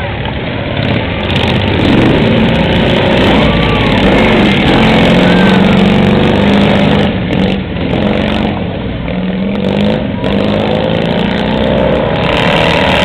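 Several racing lawn tractors' small engines running hard around a dirt track, their engine notes rising and falling as they accelerate and pass.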